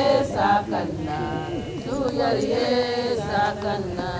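Voices chanting a song, with long held notes that waver in pitch.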